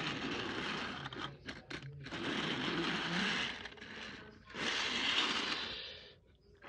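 Plastic push-along Thomas engine and coach pushed by hand along plastic toy track, wheels rolling and scraping in three stretches of a second or two each, with a few light clicks between the first two.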